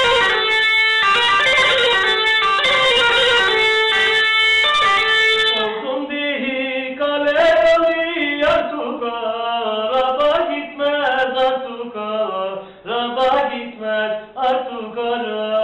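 Turkish tulum bagpipe playing a fast, continuous folk tune, which breaks off about six seconds in. Then a man's voice sings unaccompanied.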